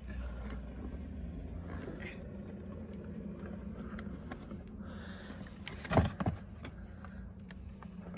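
Hands working a plastic wiring connector free from a car door card: faint clicks and handling noise, with a sharp knock about six seconds in and a smaller one just after, over a steady low rumble.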